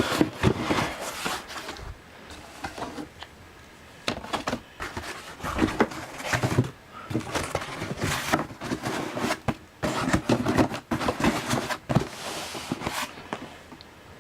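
Handling noise: vacuum cleaner parts and attachments being picked up, knocked and shuffled, in irregular bursts of clatter and rustling with sharp clicks, separated by short quieter gaps. No motor is running.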